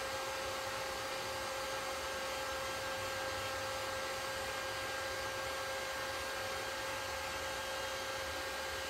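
A small blower motor running steadily: an even hiss and hum with a constant whine.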